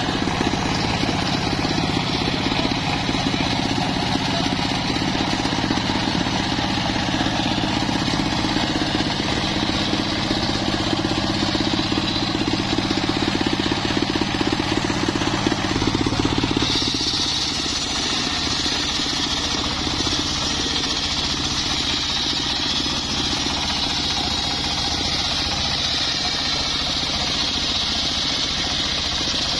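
Engine-driven homemade circular saw bench running steadily. About halfway through, the sound changes and a high, steady hiss comes in as the blade starts cutting into a log, throwing sawdust.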